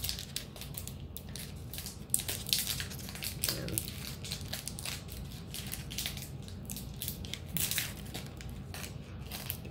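Foil Pokémon booster pack wrapper crinkling and crackling as it is handled and squeezed in the hands, many quick irregular crackles.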